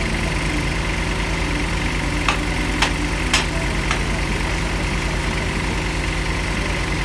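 Engine of a small trailer-mounted borehole drilling rig running steadily. A little over two seconds in, four sharp knocks come about half a second apart.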